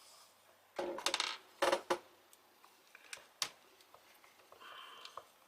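Small metal parts and a tool clinking on a hard surface in two short clusters about a second in, then a single sharp click, as an angle grinder's gear head is being taken apart.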